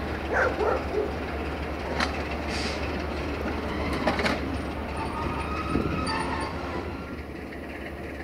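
Romanian 060-DA diesel-electric locomotive with a Sulzer engine running light at slow speed over points: a steady low engine drone, with the wheels knocking over rail joints about 2 and 4 seconds in.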